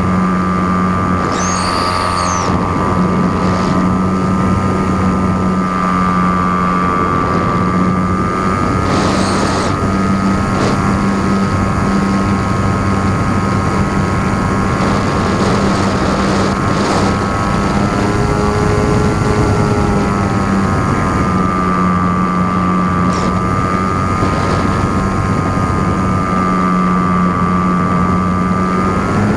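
RC airplane's motor and propeller running steadily in flight, picked up by a camera mounted on the plane: a constant whine with a low hum under it, dipping and rising a little in pitch and rising near the end.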